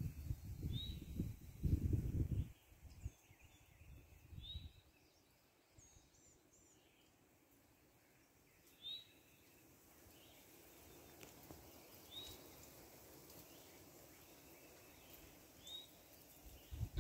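A songbird calling a short, high chirp about every two to four seconds. Low rumbling bursts of noise on the microphone come in the first few seconds and again briefly a little later, and they are louder than the bird.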